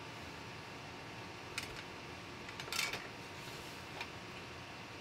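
A few light clicks and taps of hands fitting a new metal fuel filter and its line fittings into place under a BMW E39 M5, the loudest a little past the middle, over a steady low hiss.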